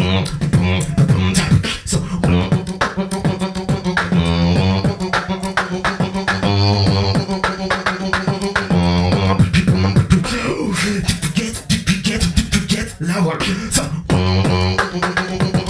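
Solo beatboxing into a handheld microphone: rapid kick and snare clicks over deep held bass tones, with warbling pitched vocal slides at several points.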